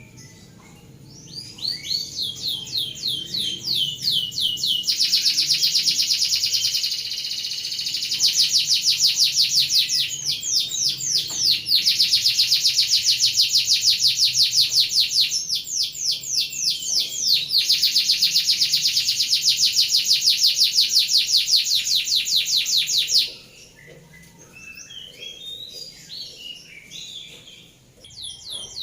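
Domestic canary singing a rolling song: long, fast trills of rapidly repeated notes that shift from phrase to phrase. The song stops abruptly about 23 seconds in, and softer scattered twittering follows.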